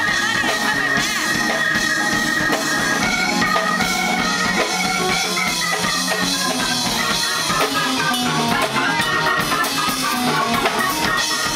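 Live band playing an instrumental passage: a drum kit keeping the beat under an electric keyboard holding long organ-like notes that move into a stepping melody, with electric guitar.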